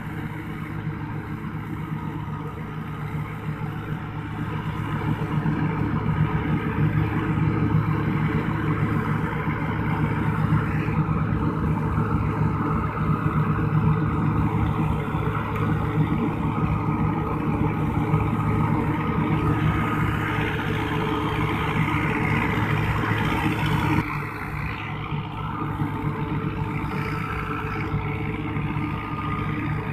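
Massey Ferguson 385 and Fiat 640 tractors' diesel engines running steadily under load while a tractor-driven straw chopper whirs and blows chopped straw. The rushing of the machinery grows louder a few seconds in and drops suddenly about four-fifths of the way through.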